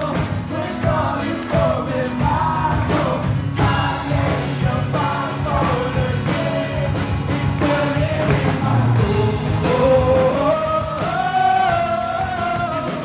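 Live band playing an upbeat song: sung vocals carrying the melody over acoustic guitar and a drum kit keeping a steady beat.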